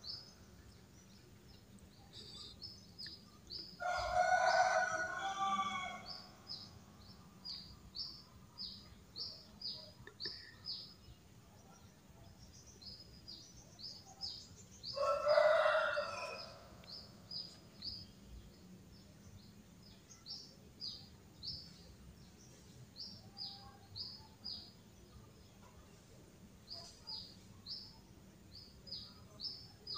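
A rooster crowing twice, about four seconds in and again near the middle, each crow lasting about two seconds. Small birds keep up short high chirps about twice a second throughout.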